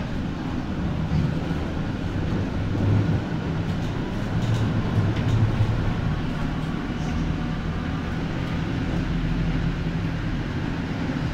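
1988 Konstal 105Na tram running, heard from inside the car: a steady low rumble of wheels on rails and running gear, with a few light clicks about halfway through.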